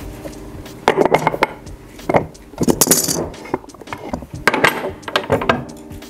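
Steel blocks and tools clinking and knocking against each other and a steel workbench as they are handled, in several short clattering clusters over a faint steady hum.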